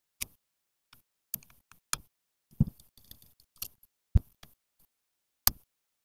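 Scattered metallic clicks and knocks as the long through-bolts are taken out of the end of an HVAC blower motor and the motor is handled. The sharpest knocks come about two and a half, four and five and a half seconds in.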